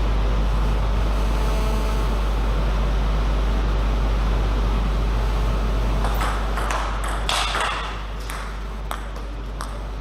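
Table tennis ball clicking against bats and table, several sharp hits in the second half, over a steady low hum from the playing hall.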